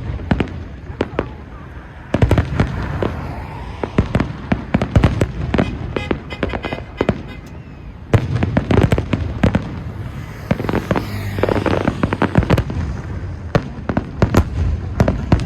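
Fireworks going off: a rapid run of sharp cracks and pops that thickens into dense crackling volleys about two seconds in and again about eight seconds in.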